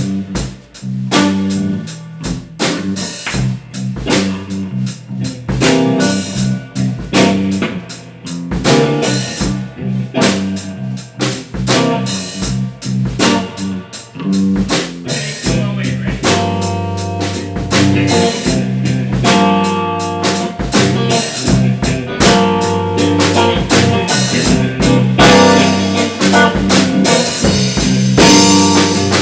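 Garage band jamming instrumentally: a full drum kit keeps a steady beat with snare and bass drum hits under sustained guitar notes.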